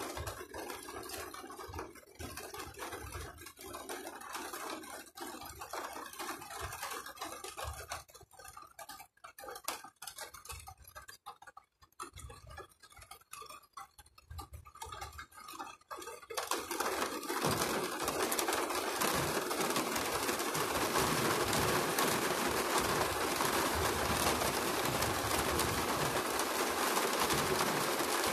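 Rain in a thunderstorm, patchy and quieter at first, then about halfway through suddenly becoming a steady, dense downpour.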